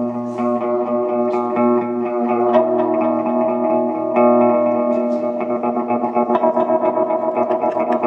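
Sustained guitar chord droning through an effects unit, with distortion and echo. The notes change about four seconds in, and from about five seconds the sound starts to pulse quickly.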